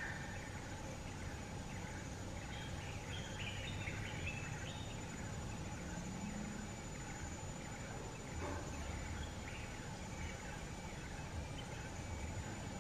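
Steady outdoor background noise, with a few faint, short, high bird chirps a few seconds in.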